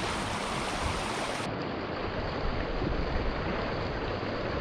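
Steady rush of flowing creek water, with a low wind rumble on the microphone; the sound turns slightly duller about a second and a half in.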